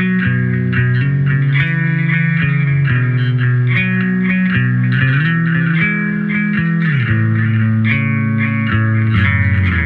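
Bass guitar played through a handmade delay pedal: held low notes that slide between pitches about five and seven seconds in.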